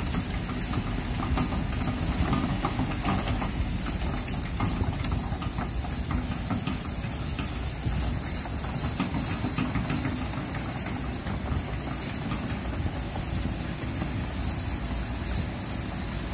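Kobelco hydraulic crawler excavator's diesel engine running steadily as the machine swings its boom and bucket, with wind buffeting the microphone.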